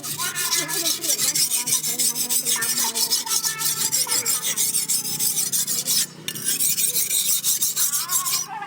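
Hand file rasping back and forth across a steel knife blade made from leaf spring steel, in quick repeated strokes with a brief pause about six seconds in.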